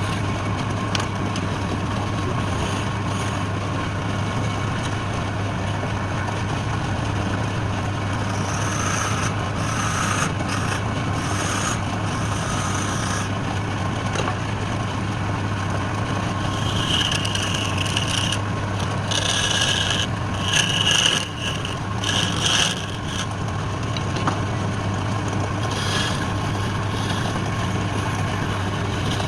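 Wood lathe running with a steady motor hum, while a turning tool cuts the spinning wood in scraping stretches, loudest about two-thirds of the way through.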